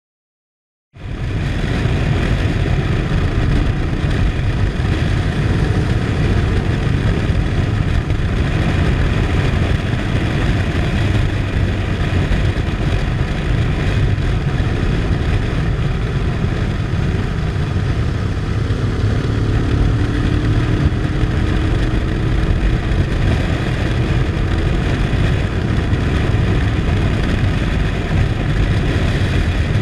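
Motorcycle riding along an open road, its engine running under a steady rush of wind on the bike-mounted camera's microphone; it starts abruptly about a second in.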